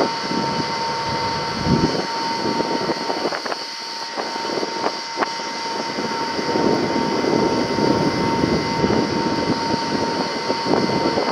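Truck-mounted borewell drilling rig running: a steady loud machine noise with a hissing upper band and a steady whine, broken by a few sharp knocks.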